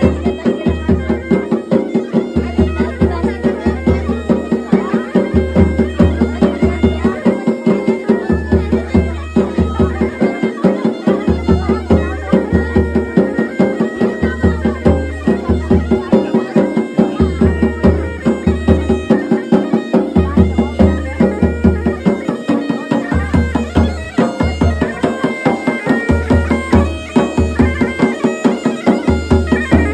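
Folk music: a wind-instrument melody over a steady drone, with a quick, even drumbeat and a deep bass note that pulses on and off every second or so.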